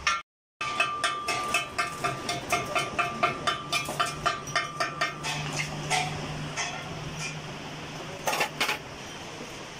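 Small hammer tapping steadily on a truck drive shaft held in a lathe's four-jaw chuck, a ringing metal-on-metal clink about three times a second that fades out after about five seconds: the shaft is being knocked true against a pointer gauge. A low hum runs underneath, and two louder knocks come near the end.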